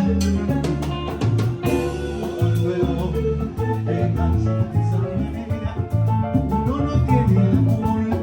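A band playing salsa-style Latin music, with a steady bass line, regular percussion and instruments carrying the melody.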